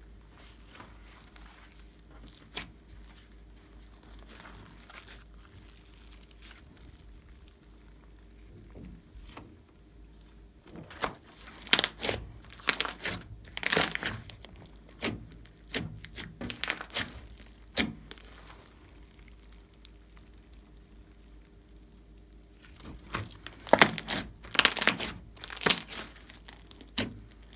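Hands squeezing, folding and stretching a large lump of glossy slime mixed with floam beads, giving sticky crackling and popping. It is faint for the first ten seconds or so, then comes in louder spells from about ten seconds in and again near the end.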